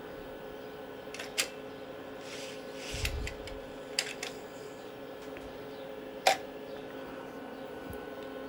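A few separate sharp clicks and a short low thump from a 5.25-inch floppy disk drive held by hand during a boot attempt that ends in another disk boot failure, over a steady electrical hum.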